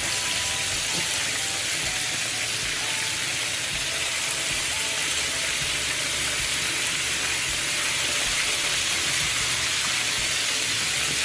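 Chicken pieces frying in hot oil: a steady, even sizzle.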